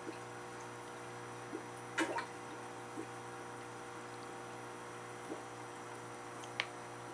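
Steady low hum of running aquarium equipment with water dripping: a few soft drips and plops, a small cluster about two seconds in and a sharper single drip near the end.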